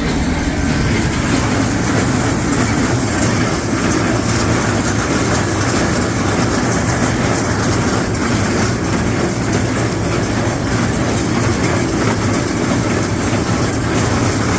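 Tractor engine running steadily with an old John Deere small square baler working behind it, baling hay.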